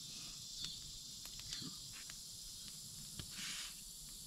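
Faint steady insect chirring in the background, with a few soft knocks and a short rustle about three and a half seconds in.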